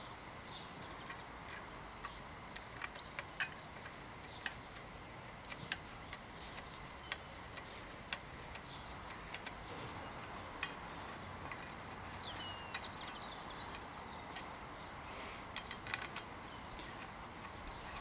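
Allen key ticking and clinking against the stem's faceplate bolts while the handlebar clamp is tightened: many short, irregular light metallic clicks. Birds chirp a few times in the background.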